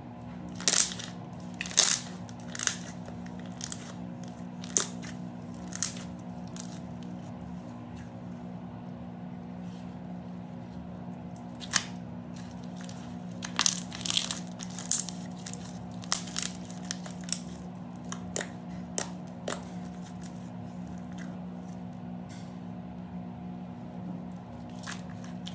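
Glitter slime being squeezed and poked, giving irregular sharp pops and clicks in clusters, mostly in the first six seconds and again from about 13 to 20 seconds in. A steady low hum runs underneath.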